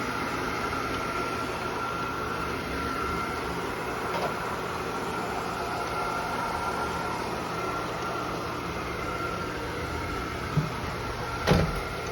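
Robot vacuum cleaner running steadily with a faint high whine, and two short knocks near the end.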